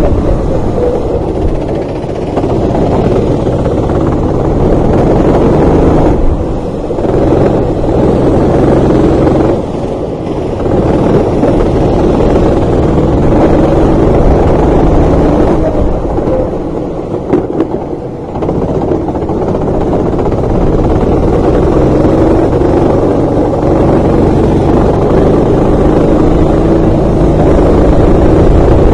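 Racing kart engine heard onboard, running hard. The engine note falls away briefly about six, ten and sixteen to eighteen seconds in, then climbs again, rising in pitch near the end.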